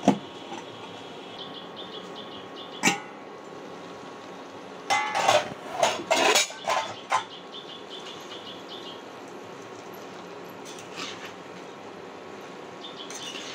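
A stainless steel lid clanks down onto a pan of spinach. There is another sharp knock about three seconds in, then a burst of metallic clattering about five to six seconds in as the lid is handled and lifted off. A faint, high, rapid chirping comes and goes in the background.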